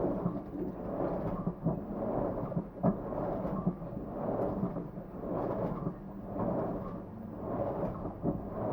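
Hitachi BW-D9LV top-loading washing machine agitating, with water and laundry churning in swells about once a second and a few knocks.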